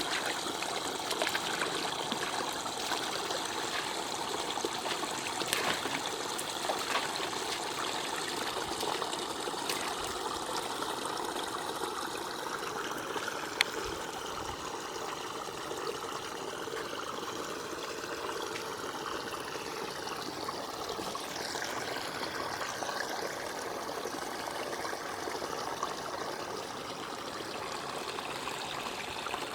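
Water flowing and trickling steadily, with a few faint clicks and one sharp tap about halfway through.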